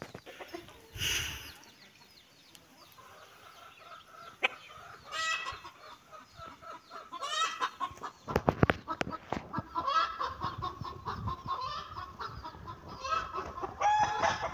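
Domestic fowl clucking in short, repeated calls, with a few sharp knocks about eight seconds in.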